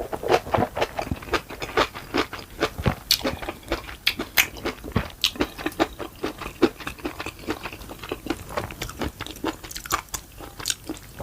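Close-miked chewing of ramen and kimchi: a dense run of small wet clicks and crunches, several a second.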